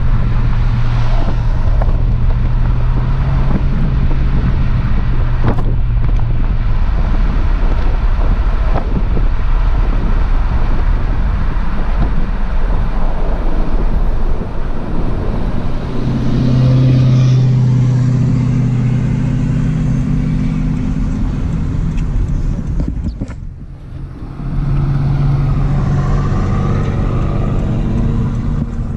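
A vehicle driving at road speed, heard from inside, with steady road and wind noise and an engine hum that swells and fades. Near the end there is a brief lull before the noise picks up again.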